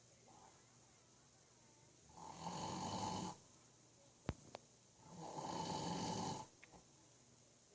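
A man snoring in his sleep: two long snores about three seconds apart, each lasting about a second and a half. Two sharp clicks fall between them.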